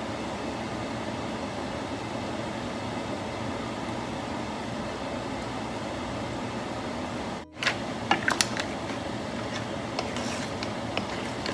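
A steady fan-like hum and hiss. After a brief break about seven and a half seconds in, a wooden spatula knocks and scrapes against a pan of crab legs, mussels and shrimp as they are stirred, in a run of sharp clicks.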